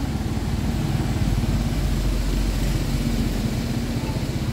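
Toyota Fortuner's four-cylinder VNT turbo-diesel engine idling steadily.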